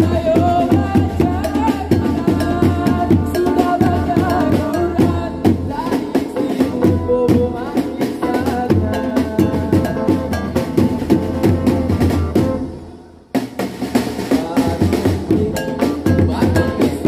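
Patrol sahur music: a fast beat on drums and percussion with a melody over it. It fades out briefly about three-quarters of the way through, then starts again abruptly.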